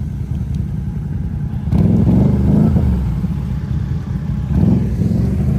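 Can-Am ATV engine running low and steady, revved up twice, about two seconds in and again near the end, as the quad is worked free while stuck in deep mud and water.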